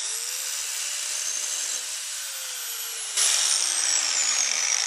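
Angle grinder starting up with a rising whine, then sagging in pitch as it bears on a rusty steel exhaust pipe. It is grinding off the leftover spur of a tack weld. About three seconds in, the grinding hiss gets suddenly louder.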